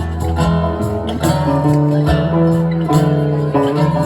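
Live band music, an instrumental passage with strummed guitar chords and no singing.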